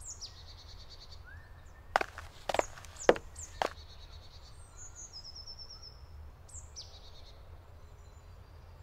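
Small birds singing with high, thin calls, some falling in pitch and one short trill. A quick, uneven series of five sharp knocks comes about two to three and a half seconds in.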